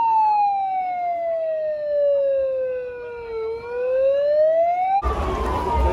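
A siren wailing: one slow tone sliding down over about three and a half seconds, then rising again, with almost no crowd noise behind it. About five seconds in, crowd noise cuts back in under another falling siren tone.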